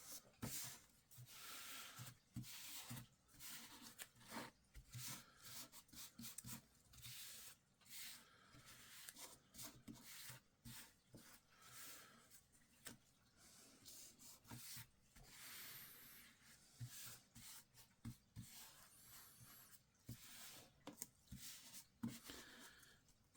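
Paper print being rubbed and smoothed down onto glue-coated craft plywood: faint, repeated rubbing strokes of paper on wood.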